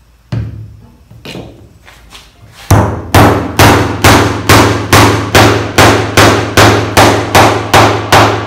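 Hammer driving a wooden dowel into an offset drawbore hole in a tabletop's breadboard end: one knock, a few light taps to start it, then a steady run of about fourteen hard blows, a little over two a second. The offset hole pulls the breadboard tight to the top, and this dowel sets well.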